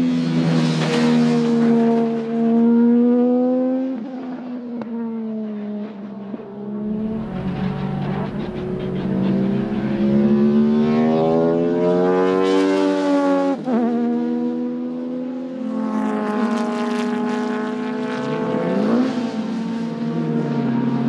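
Opel Calibra ITC race car's 2.5-litre V6 engine under hard acceleration, its note climbing and then dropping abruptly at gearshifts several times.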